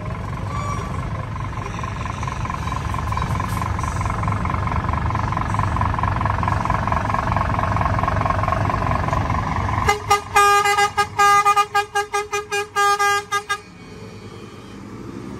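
A Scania truck's engine running as it pulls slowly past, growing louder. About ten seconds in, a truck air horn sounds in a rapid run of short toots, roughly three a second, for about three and a half seconds, then stops.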